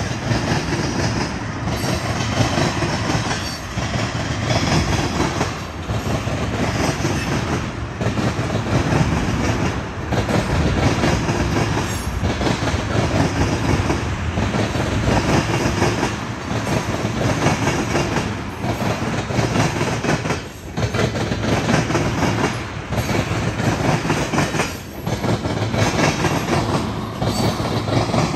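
Freight train of tank cars rolling past, a steady wheel-on-rail noise broken by repeated clickety-clack as the wheels pass over rail joints and the track crossing.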